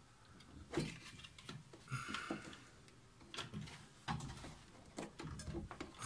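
Scattered light clicks and knocks of hard plastic parts being handled while a washing machine's opened drain pump and its impeller are checked for debris, with a short rustle about two seconds in.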